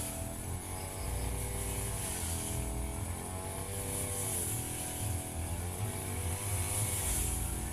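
Firman FGB 528 two-stroke brush cutter running under load while cutting grass, its engine pitch rising and falling several times as the throttle and cutting load change.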